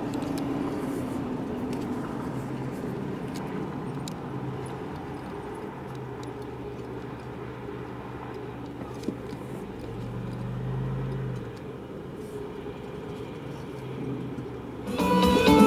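Steady road and engine hum heard from inside a moving car in traffic, swelling briefly about ten seconds in. Near the end, music starts abruptly and is louder than the road noise.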